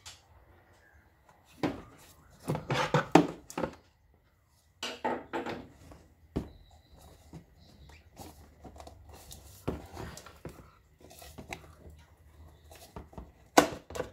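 Hard plastic air-intake parts being handled: irregular clicks, knocks and scraping as the mass airflow sensor housing is worked loose from the air cleaner box. There is a dense flurry of knocks a couple of seconds in, scattered clicks after it, and one sharp click near the end.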